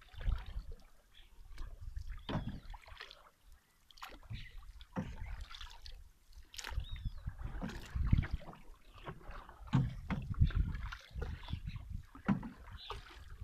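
Canoe being paddled across calm water: paddles dip and pull through the water, with occasional sharp knocks and uneven low rumbling.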